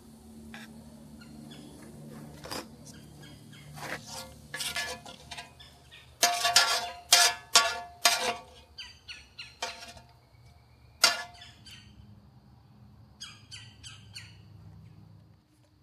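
Metal tongs and a spatula scraping and clinking against a steel cooking disc. It is a run of sharp scrapes and clinks, loudest and thickest in the middle, with one more loud clink a few seconds later.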